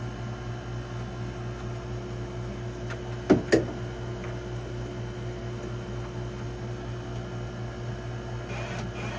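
A steady machine hum, like a fan or motor, with two sharp knocks close together a little over three seconds in.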